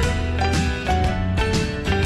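Background instrumental music with a steady beat of about two strokes a second.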